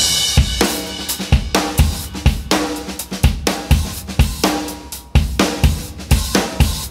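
Music led by a drum kit: a steady beat of kick, snare and cymbal hits.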